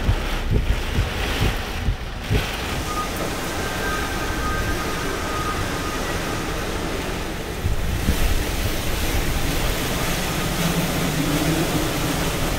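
Hurricane Laura's strong winds and heavy rain rushing steadily, with gusts buffeting the microphone during the first couple of seconds.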